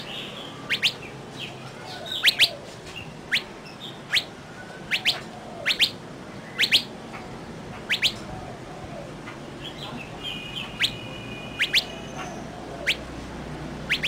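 Birds chirping: clear, sharp chirps that sweep down in pitch, mostly in pairs, repeating about once a second, with one held whistled note near the end.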